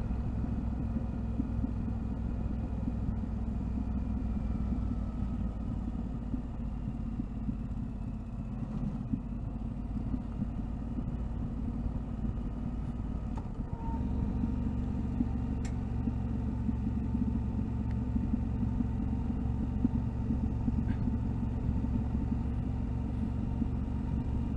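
Yamaha Ténéré 700's parallel-twin engine running steadily under way, its note shifting and growing louder about 14 seconds in.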